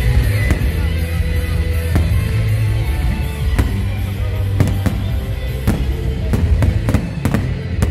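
Aerial firework shells bursting with sharp bangs, a second or more apart at first and coming faster in the second half. They sound over loud music with a heavy, steady bass.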